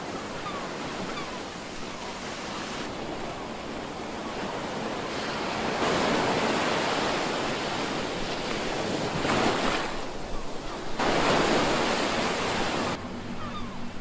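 Ocean surf breaking on a rocky shore: a steady wash of water, swelling louder twice, around the middle and near the end, as bigger waves break.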